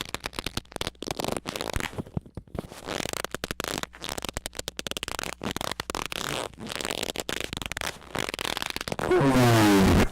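Harsh, choppy squeaking and crackling noise in rapid bursts, then a loud, distorted squeak that falls in pitch for about a second near the end.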